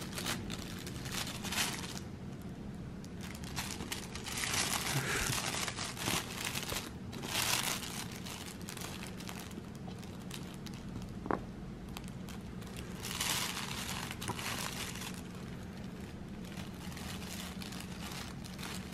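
A baby handling a cloth crinkle book, its crinkly fabric pages rustling in several separate bursts of crinkling. A short squeak sounds near the middle.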